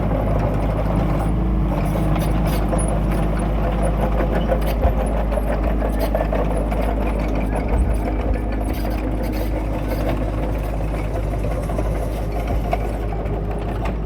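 Kubota mini excavator's diesel engine running steadily, with a few brief knocks.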